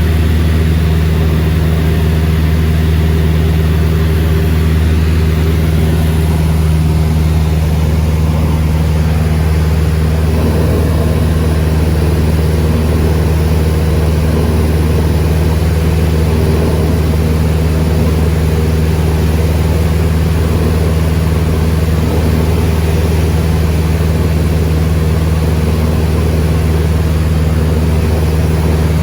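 Cessna 172's piston engine and propeller running steadily at a constant power setting, a loud unbroken low drone.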